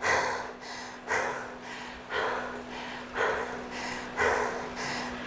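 A cyclist breathing hard just after an all-out sprint: heavy, rasping breaths about once a second as she recovers.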